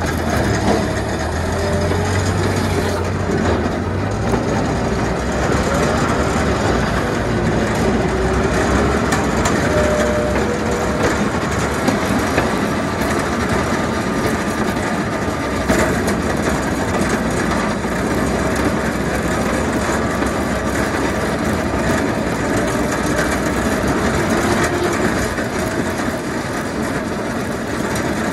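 Loader's diesel engine running steadily under load while its front-mounted snow plow blade scrapes snow and ice from the road surface, with a single knock about halfway through.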